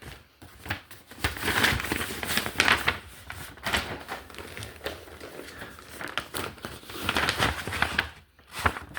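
Packaging being handled, crinkling and rustling in irregular bursts.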